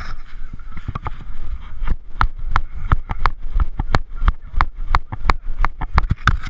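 Running footsteps close to the microphone, heavy thuds falling into a steady pace of about three strides a second from about two seconds in.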